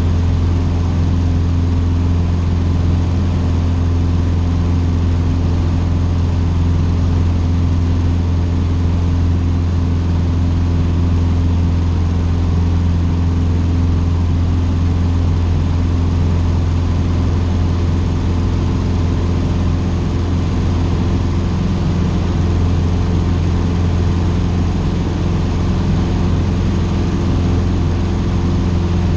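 Cessna 150's four-cylinder Continental O-200 piston engine and propeller running steadily at a constant power setting, a loud, even drone with no change in pitch.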